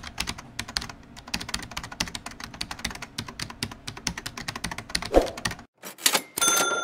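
Computer keyboard typing sound effect: fast, uneven key clicks for about five seconds that stop abruptly. Near the end come a couple of sharp hits and the start of a bell-like ding that rings on.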